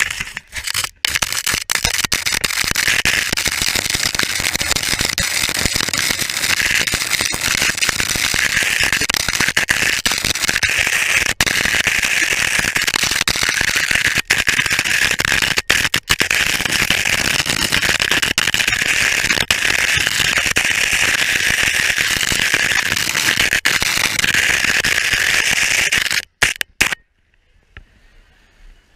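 A camera sliding over rink ice, its housing scraping and rattling against the surface in a loud, steady, crackling rattle with a few brief dropouts. It cuts off suddenly about 27 seconds in.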